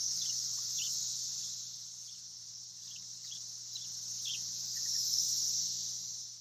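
Chorus of thousands of periodical cicadas in the trees: a steady high-pitched drone that swells and eases, loudest about five seconds in, with a few faint short chirps above a low hum.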